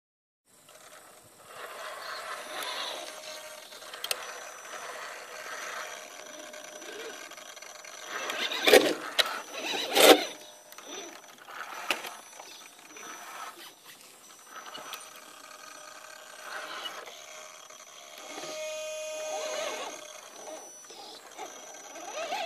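Electric motor and geared drivetrain of a 1/10-scale RC rock crawler whining as it climbs rock, the whine coming and going with the throttle. Two loud knocks land about a second and a half apart roughly a third of the way in.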